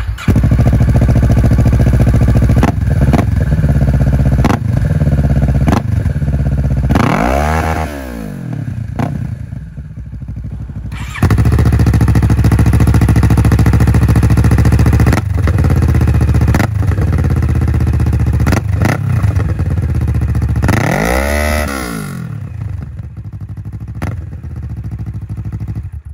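2020 Kawasaki Ninja 650 parallel-twin engines with the dB killers removed, heard one after the other: first through a Yoshimura slip-on exhaust, then, after a cut about eleven seconds in, through an Arka exhaust. Each gets a run of short throttle blips and one longer rev that climbs and falls, then drops back to idle.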